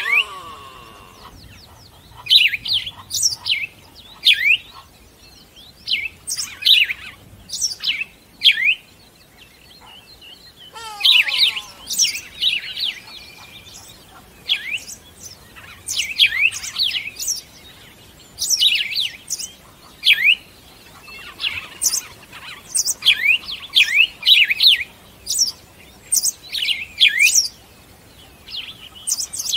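Birds chirping in repeated bursts of short, quick, high chirps.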